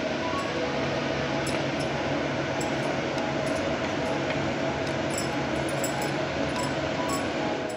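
Finger-millet noodles and vegetables boiling in an earthenware pot over a gas burner: a steady bubbling hiss, with a wooden spatula stirring and scraping against the pot and a few light clinks.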